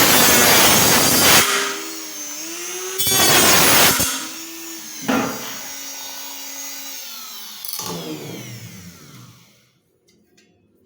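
Rotary tool (micro grinder) cutting an opening in the metal of a Heineken mini keg: loud grinding in several bursts as it bites into the metal, with the motor whining between cuts. Near the end the motor winds down and stops.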